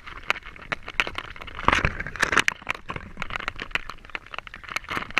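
Irregular crackling and clicking of seawater splashing and dripping on a GoPro's waterproof housing at the surface, with a busier cluster about two seconds in.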